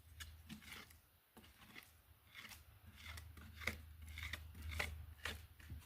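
A run of short, sharp snips and cracks, about a dozen, unevenly spaced, over a faint low rumble.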